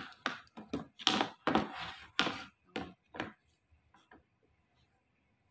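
Hard plastic parts of a folding study table knocking and clacking together as they are handled and fitted: a run of about ten clacks over the first three seconds, then a few faint ticks.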